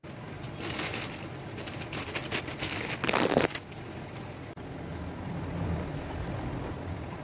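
Water boiling in an aluminium cooking pot: crackly bubbling with a louder splashing rush about three seconds in. It settles to a steady low kitchen hum after about four and a half seconds.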